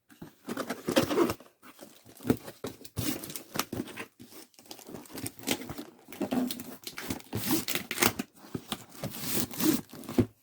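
Packaging being handled by hand: irregular crinkling and rustling with brief tearing sounds and small clicks, stopping suddenly at the end.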